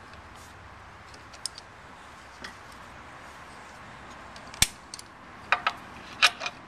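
Small metal brake-linkage parts clinking and tapping against the mower's steel frame as they are handled and fitted: faint ticks at first, then a few sharp clinks in the second half, the loudest about four and a half seconds in.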